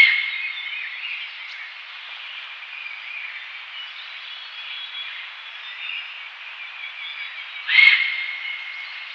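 Himalayan goral calling twice, once at the start and again about eight seconds later: each call a sudden, sharp cry that trails into a high held tone fading over about a second. Faint chirping runs underneath.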